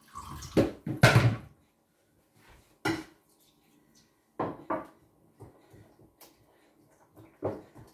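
Scattered knocks and clatters of kitchen work at a wooden worktop, the loudest a dull thump about a second in. After that come a few separate clinks of a whisk against a glass mixing bowl as thick pancake batter is stirred.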